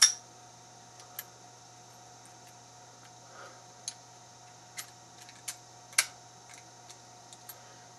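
Sparse sharp metallic clicks from a 50mm Master Lock padlock and the lock picks and tension tool being handled after the lock is raked open. About a dozen irregular clicks, the loudest right at the start and another about six seconds in.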